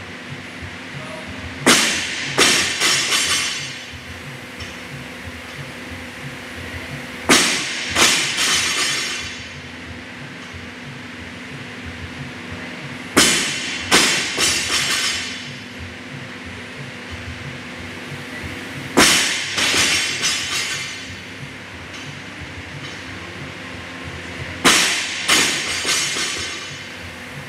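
A 55 kg barbell loaded with rubber bumper plates dropped onto a rubber gym floor five times, about every six seconds. Each drop lands with a loud bang and then bounces two or three times before it settles.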